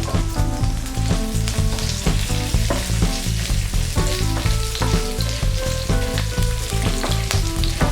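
Whole spices and chopped green chilli sizzling and crackling as they fry in hot oil in a pan, over background instrumental music.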